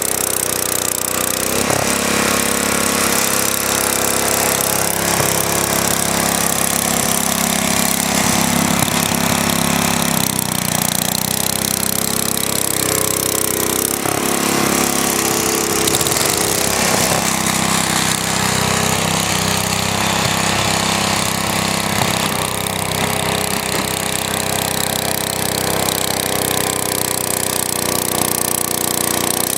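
Small engine of a Wheel Horse garden tractor running steadily, its pitch shifting up and down for a few seconds around the middle.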